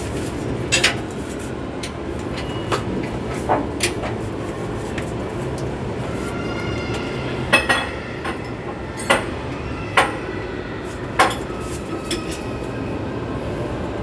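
Hand tools clinking and knocking against the steel underside of a vehicle during gearbox removal: about eight irregular sharp metallic clinks, some ringing briefly, over a steady low background rumble.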